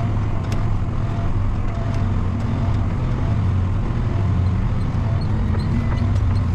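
Farm tractor engine running steadily, heard from inside the cab as it is driven up through its gears on a bumpy road, with a few sharp rattles and knocks over the engine noise.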